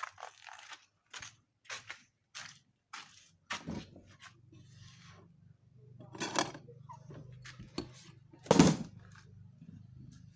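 A run of sharp knocks and scrapes, about two a second, like utensils or tools on pots and boards during cooking. A low steady hum comes in about a third of the way through, and one heavier knock lands near the end.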